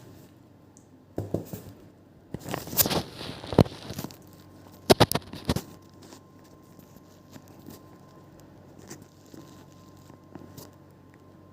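Rustling and crinkling handling noises with a few sharp clicks, in three bursts: about a second in, from two to four seconds in, and around five seconds in; after that only faint scattered ticks and a faint steady high hum.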